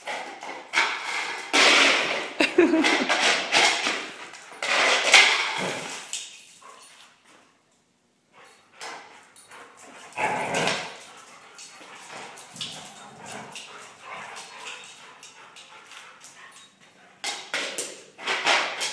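A German Shorthaired Pointer playing with a lid on a hard garage floor: irregular bursts of scraping and clattering as the lid skids along and the dog's paws and claws scramble after it, with a few barks.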